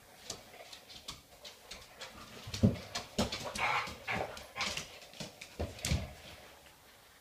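A springer spaniel and a black Labrador play-wrestling: scuffling and bumping with short dog sounds, the loudest thump about two and a half seconds in and another near six seconds.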